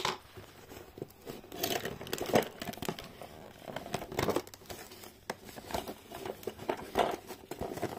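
A cardboard toy box and its packaging being handled and opened: irregular crinkling, rustling and tearing, with a few sharp taps and knocks.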